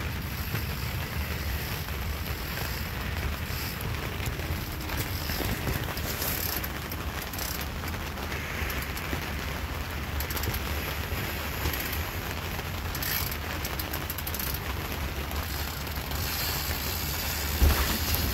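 Steady wind noise buffeting the microphone, a flickering low rumble with a rushing hiss over it, with a single thump near the end.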